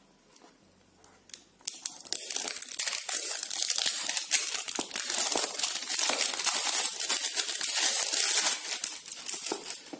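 Clear plastic shrink wrap being torn and peeled off a smartphone's cardboard box: dense, continuous crinkling and crackling that starts about two seconds in.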